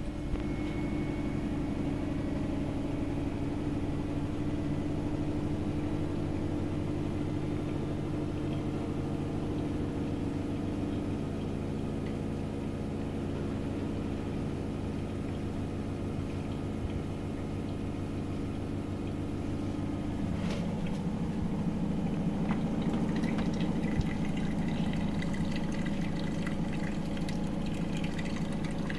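Samsung WW80R421HFX front-loading washing machine running through its cycle: a steady motor hum with water sloshing in the drum. About 20 seconds in, the sound changes and grows a little louder, with more water splashing.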